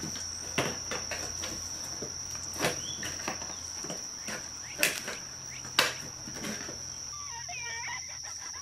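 Insects chirring outdoors, a steady high-pitched drone, with several sharp clicks scattered over it, two of them louder past the middle.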